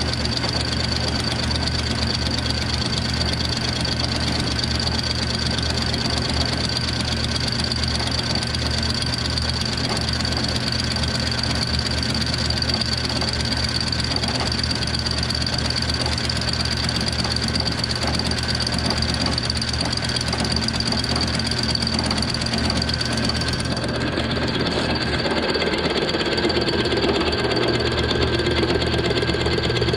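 Milling machine running with a fly cutter skimming the deck face of a Kawasaki X2 650 aluminium cylinder block, a steady machining sound with a rapid knocking chatter from the interrupted cut. The tone shifts near the end.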